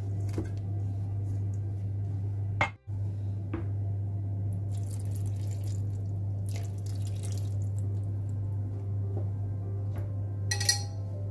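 Water trickling from a measuring jug through a small wire-mesh strainer into a plastic tub, coming in a few short pours over a steady low hum. There is a sharp knock a little before the pouring, and clinks near the end.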